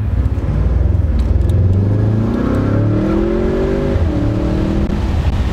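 Audi S8 twin-turbo V8 with a full titanium aftermarket exhaust, heard from inside the car while accelerating. A low rumble rises in pitch from about a second in, drops about four seconds in at an upshift, then holds steadier.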